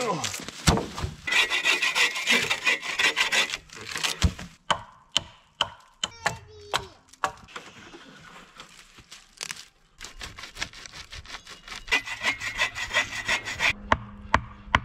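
Bow saw cutting through a dead log in quick back-and-forth strokes, then a series of sharp wooden knocks as logs are handled and set in place, then more sawing strokes near the end.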